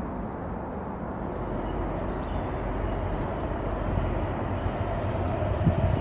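Tram approaching along the line, its running noise and rumble growing steadily louder, with a steady whine coming in near the end.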